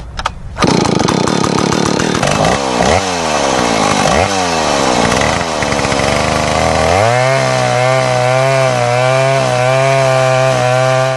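Two-stroke chainsaw running and cutting wood. It revs up and down several times, then holds a steady, slightly wavering note from about seven seconds in, and cuts off suddenly at the end.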